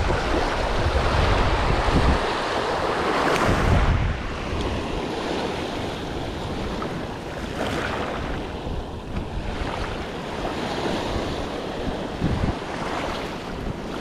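Small sea waves washing up a sandy shore, with wind buffeting the microphone as a low rumble that is heaviest in the first four seconds.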